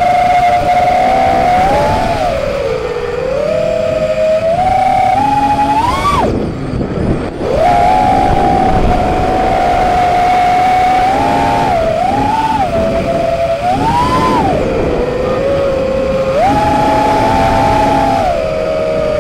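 Whine of an FPV freestyle quadcopter's T-Motor F40 II 2400 kV brushless motors spinning DAL 5060 props, gliding up and down in pitch as the throttle changes. About six seconds in the whine drops away for a second or so as the throttle is cut, then comes back, over a steady rushing noise.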